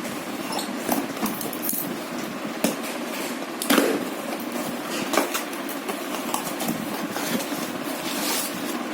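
Clicks and knocks of a plastic peanut-butter jar and its lid being handled, the loudest about midway, over steady background noise.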